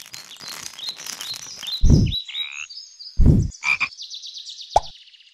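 Frog croak sound effects on an animated logo: two short, deep croaks about two and three seconds in, the loudest sounds, set among high chirps and rustling whooshes.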